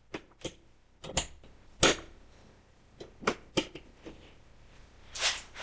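Scattered light clicks and knocks of a hard plastic 3D-printed arrow holder and an arrow being handled and fitted against a wall, the sharpest knock a little under two seconds in, followed by a short rustle near the end.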